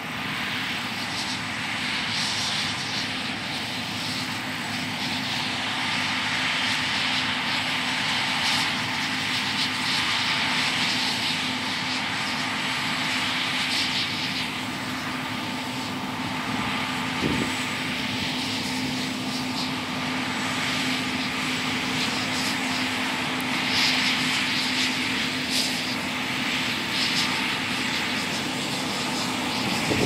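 John Deere S680 track combine running as it harvests soybeans: a steady engine drone with a constant low hum under a thick rushing hiss from the header and threshing. The hiss swells and eases several times, it grows louder over the first several seconds, and there is a single sharp knock about seventeen seconds in.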